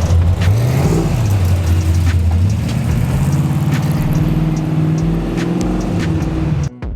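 Fox-body notchback Mustang engine running, given a quick rev about half a second in that falls back, then raised again near three seconds in and held at a steady higher speed until it cuts off abruptly just before the end.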